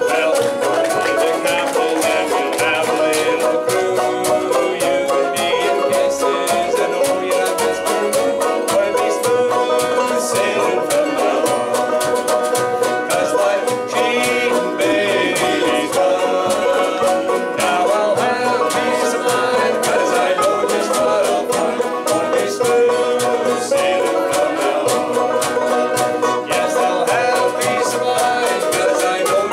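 Live bluegrass band playing: banjos picking over mandolin, guitar and upright bass, with a hand drum on a stand keeping the beat.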